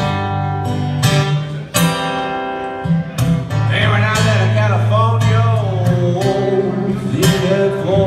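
Eastman E10OM acoustic guitar played live in a slow blues, with chords struck about once a second and picked notes between them. A man's voice sings a line over it from about three and a half seconds in to about six and a half.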